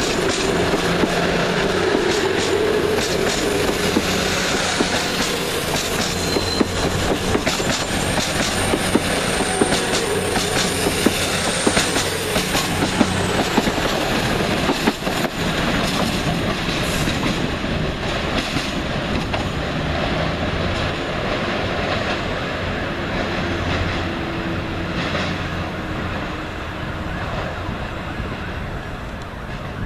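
Class 222 Meridian diesel multiple unit pulling away, its underfloor Cummins diesel engines running under power with wheels clicking over the rail joints and points. A thin high wheel squeal sounds for a few seconds in the first half, and the sound eases slightly as the train draws away.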